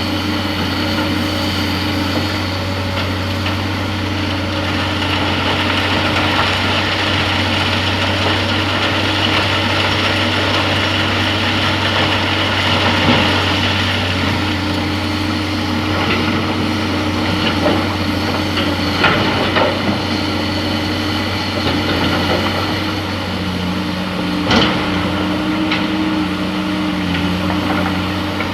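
Excavator's diesel engine running steadily at a mine site, with a few sharp knocks and clatters in the second half.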